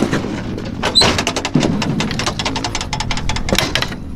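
Rapid metal clanks, knocks and rattles as the rear engine-compartment door of a 1982 Prevost coach is unlatched and swung open.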